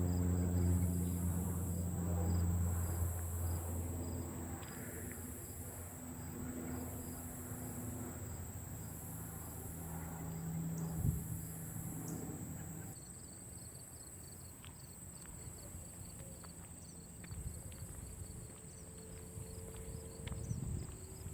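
Late-summer evening insect chorus: a steady high whine and a very high buzz that swells and fades about every two seconds, over rapid cricket chirping. A low humming drone, loudest at the start, fades away within the first half.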